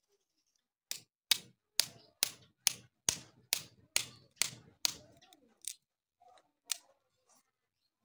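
About ten sharp hammer blows on the nailed wooden block fixed to a cow's hoof claw, a little over two a second, then a few weaker, slower taps.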